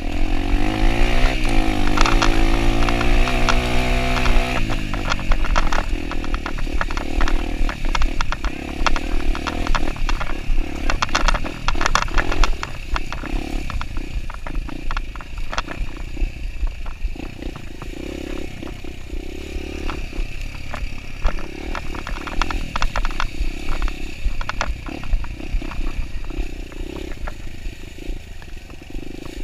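Kawasaki dirt bike engine revving up and rising in pitch for the first few seconds, then running lower and steadier while riding over rough trail, with many sharp clattering knocks.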